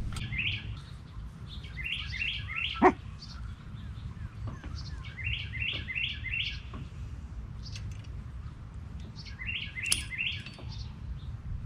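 A songbird calling in short runs of three or four quick chirps, repeated four times. About three seconds in comes one short, loud falling squeal, with a steady low rumble underneath throughout.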